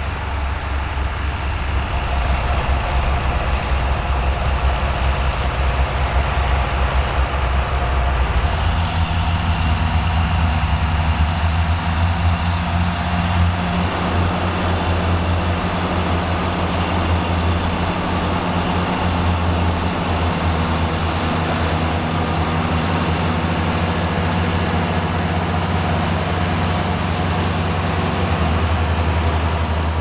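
Several John Deere 55-series tractors' six-cylinder diesel engines pulling under load together while ploughing, their slightly different exhaust notes blending into one steady drone. The mix of engine notes shifts about eight seconds in.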